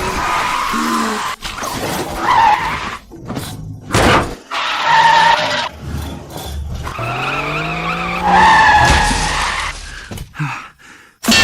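Car action sound effects: tyres screeching several times, an engine revving up about seven seconds in, and sharp crashes about four seconds in and again near the end, over music.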